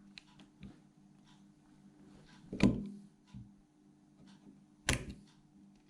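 Clicks and knocks of a watch case-opening tool gripping and turning a screw-down watch back, with two louder knocks about two seconds apart.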